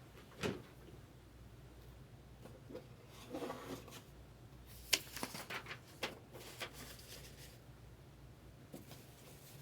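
Trading cards being handled on a table: a soft thump, a brief rustle, then a cluster of light clicks and taps as cards and stacks are moved.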